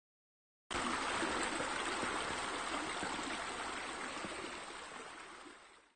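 Running water, a steady rushing trickle that starts abruptly under a second in and fades away near the end.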